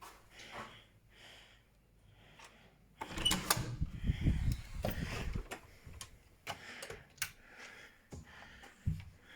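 Indoor handling and clattering noises: a loud spell of knocking and rustling about three seconds in, then a few sharp clicks, like a door being opened and its latch.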